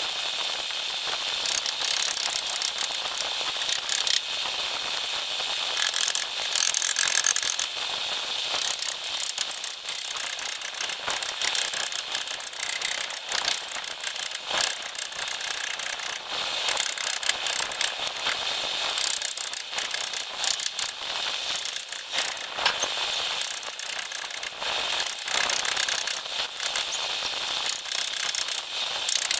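Continuous mechanical clicking and rattling, thin and high with almost no low end, as from a ratcheting hand tool being worked steadily.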